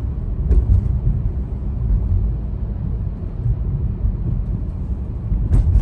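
Steady low rumble of engine and road noise inside the cabin of a 2006 Subaru Tribeca climbing a long hill in drive under load. There is a short knock about half a second in and a louder one near the end.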